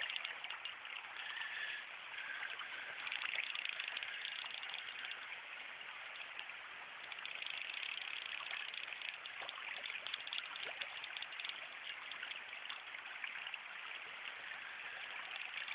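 Shallow river current running steadily over a riffle, a continuous rippling, trickling rush of water.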